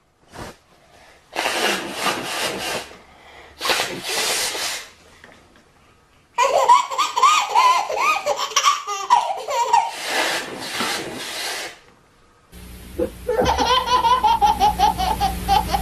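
Two loud, breathy bursts of noise, then a baby's long, pulsing belly laughter. After a cut, a second baby laughs in quick rapid bursts over a steady low hum.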